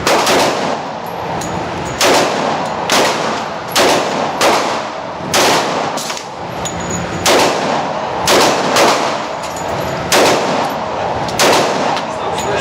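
Pistol shots from a Glock 29 Gen4 10mm subcompact, about a dozen loud cracks fired at an uneven pace, roughly one every half second to a second, each with a short ringing tail and steady noise between the shots.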